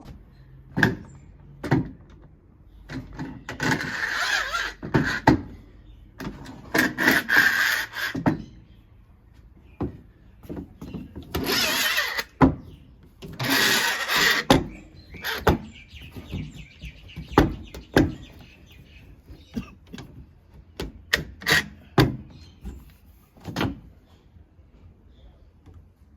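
Solid timber panels and tools being handled during a glue-up: a string of wooden knocks and clatters, with several scraping, hissing sounds of a second or two each, the loudest about halfway through.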